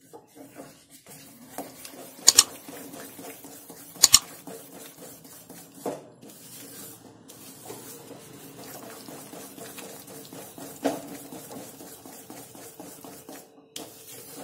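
Wooden spatula stirring and scraping a thick, sticky barfi dough of roasted flour and sugar syrup around a steel kadai, with a few sharp knocks of the spatula against the pan, two of them close together a couple of seconds in and one more later.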